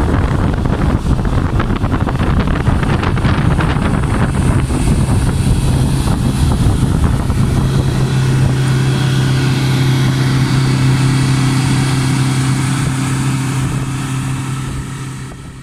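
Boat motor running at a steady pitch with wind rumbling on the microphone; the wind is strongest in the first few seconds, the engine's steady drone is clearest after that, and the sound fades out at the very end.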